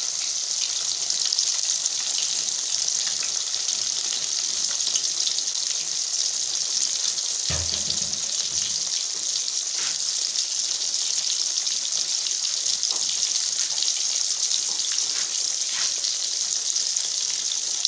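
Coated fish pieces deep-frying in hot oil in an iron karahi: a steady sizzle with fine crackling and spitting.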